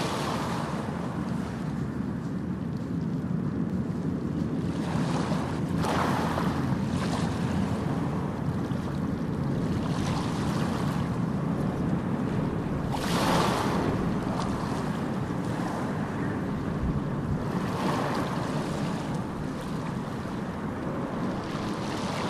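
Steady rushing noise, swelling several times and most strongly about thirteen seconds in.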